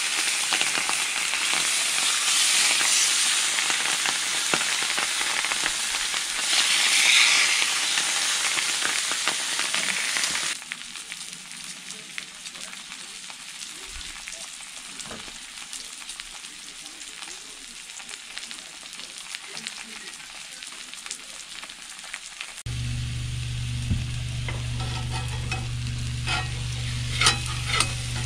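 Seasoned kokanee salmon fillets sizzling in a hot skillet, loud at first and much quieter after about ten seconds. A steady low hum comes in later, and near the end a spatula clicks and scrapes against the pan.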